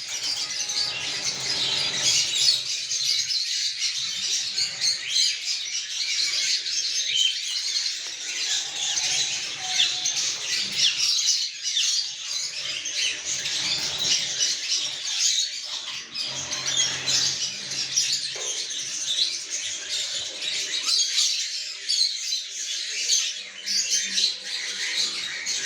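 A flock of pet parrots chirping and chattering continuously, many short overlapping calls with occasional squawks.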